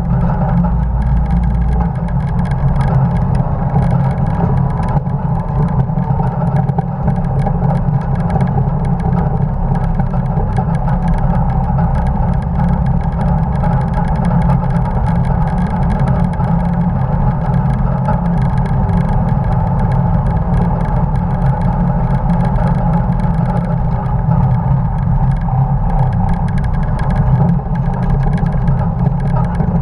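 1950 Dodge pickup truck's engine running hard and steady at racing speed, heard from a camera mounted on the truck, with road and wind rush mixed in.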